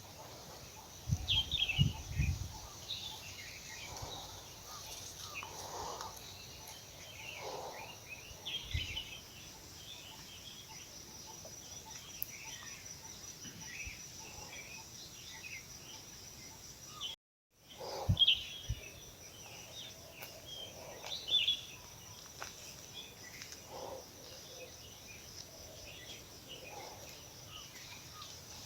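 Several small birds chirping in short, scattered calls over a steady high buzz, with a few low thumps. The sound drops out completely for a moment about two-thirds of the way through.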